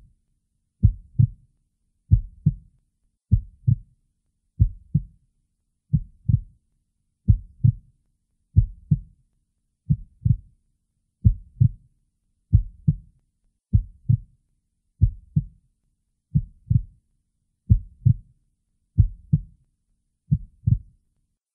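Slow heartbeat sound effect: a pair of low thumps repeating steadily about every 1.3 seconds.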